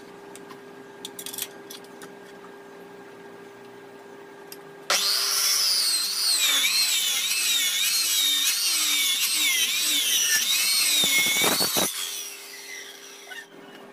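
Handheld electric circular saw switched on about five seconds in and ripping a wooden board lengthwise, a loud high whine wavering up and down as it cuts, then released and spinning down near the end. Before it starts there is a low steady hum and a few light knocks.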